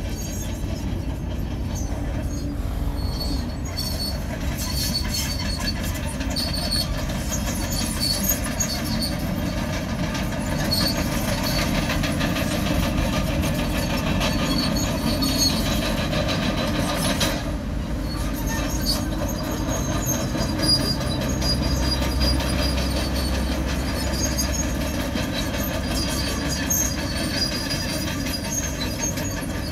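Komatsu crawler bulldozer at work: a steady low engine rumble with the steel tracks squealing and clanking, the squeals short and high-pitched and coming again and again. The rumble swells for a few seconds past the middle.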